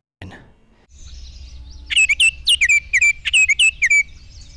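Field recording of a bird call played back: a quick run of about ten sharp chirps, each sliding downward, roughly five a second for about two seconds, over a steady background hiss of the recording.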